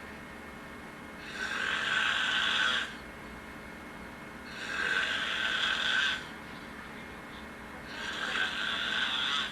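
A person asleep and snoring: three long snores about three and a half seconds apart, each lasting about a second and a half, with quieter breathing between them.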